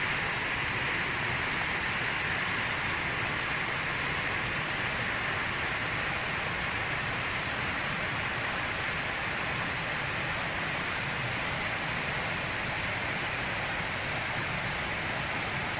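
Steady, even hiss of outdoor background noise, strongest in the upper-middle range, with no distinct sounds standing out.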